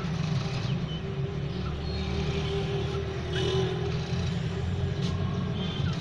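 A steady low rumble with a hum held through most of it, and a few faint short bird chirps over the top.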